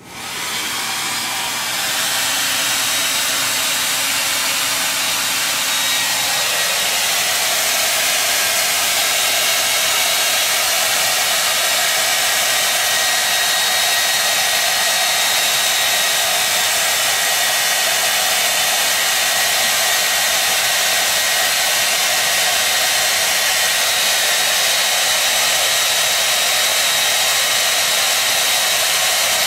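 Handheld hair dryer switched on and spinning up over about two seconds, then running steadily with a loud rushing airflow and a thin high whine.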